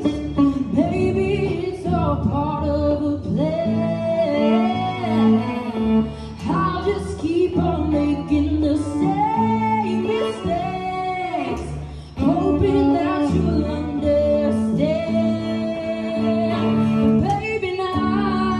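A woman singing a melody into a microphone, accompanied by an electric cello holding low sustained notes, both amplified through a small speaker.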